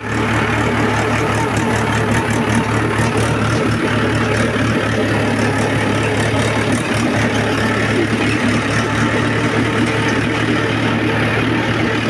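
The engine of a heavy farm vehicle loaded with paddy runs steadily at an even speed, with a strong, constant low hum. It starts abruptly.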